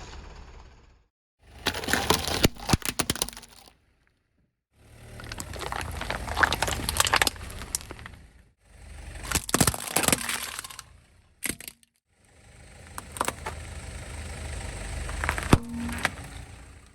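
Car tyre rolling over toys and crushing them, with sharp cracks and snaps over a low tyre rumble. It comes as about five short takes, each cut off by a moment of silence.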